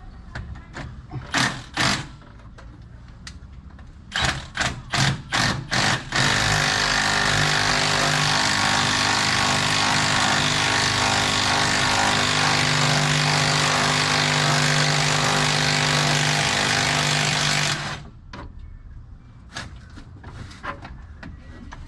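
3/8-inch impact gun on the engine's harmonic balancer: a few short blips, then a steady run of hammering for about twelve seconds that stops suddenly.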